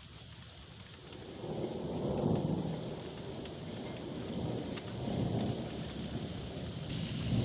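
Thunderstorm: steady heavy rain with rolling thunder, the rumble swelling about two seconds in and again about five seconds in.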